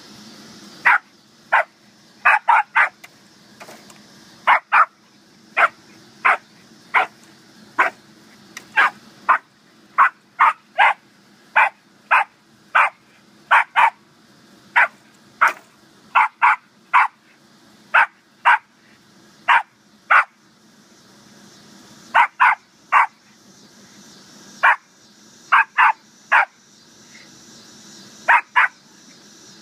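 A West Highland white terrier barking over and over: short, sharp barks, one or two a second, some in quick pairs and threes, with a couple of brief pauses.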